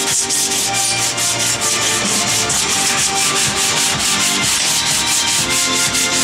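Sandpaper on a hand block rubbed back and forth over body filler on a Toyota Land Cruiser FJ40's rear quarter panel, a steady hiss in fast, even strokes, several a second.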